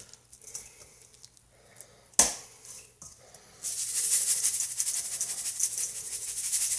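Sea salt shaken from a container over fish fillets in a stainless steel bowl: a steady, rapid rattle that starts about three and a half seconds in. A single sharp knock comes about two seconds in, before it.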